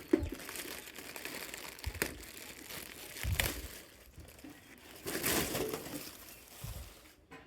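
Packaging from a welding machine being handled, crinkling and rustling in irregular bursts, with a couple of sharp clicks.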